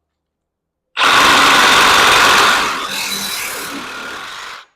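Milwaukee Fuel 2821-20 cordless brushless reciprocating saw cutting through a 1.25-inch pipe. It starts abruptly about a second in and is loudest at first, then eases off partway through the cut. It stops suddenly near the end.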